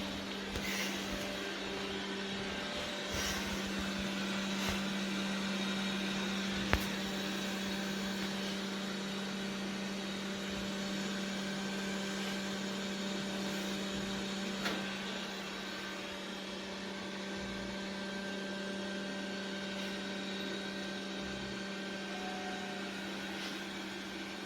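Xiaomi X20 Pro robot vacuum running with a steady motor hum and whir. There is a sharp click about seven seconds in and a smaller one about fifteen seconds in.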